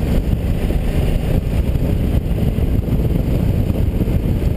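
KTM 990's V-twin ridden at road speed, heard through heavy wind rush on the onboard microphone: a steady low rumble with no let-up.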